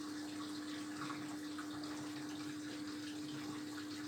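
Zerowatt/Hoover Performa 1000 washing machine taking in water for the rinse: a steady rush of water running into the machine, with a steady hum underneath.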